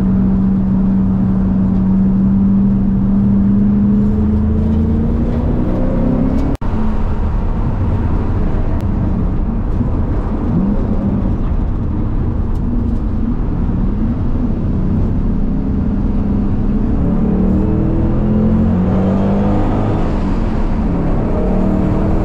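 Ford Mustang engine and road noise heard from inside the cabin while lapping a racetrack. The engine note holds steady, then climbs; after a brief dropout about six and a half seconds in, it rises and falls with the throttle and climbs again near the end.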